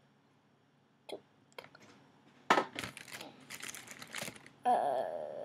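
Plastic crinkling and rustling from handling small plastic toys, starting with a few light clicks and growing into a louder stretch of crackling about halfway through. A short vocal sound from the girl comes near the end.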